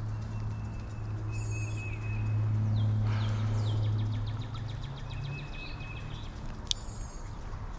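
A steady low hum, with a few bird chirps. A fishing rod is cast, and the reel gives a short run of fast, even clicks a few seconds in. One sharp click comes near the end.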